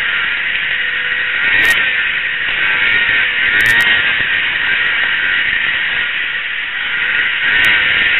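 Racing two-stroke snowmobile running at speed, heard through a helmet-mounted camera: a loud, steady rush of engine and wind noise with a few brief crackles.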